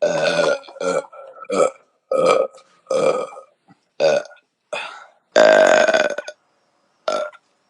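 A woman belching over and over, about nine burps in a row with short gaps, the longest and loudest one a little past the middle. They are bloated burps, gas brought up after drinking beer.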